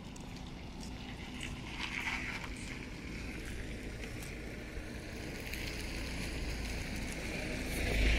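Outdoor yard ambience: a steady low rumble with wind buffeting the microphone, swelling into a strong gust near the end.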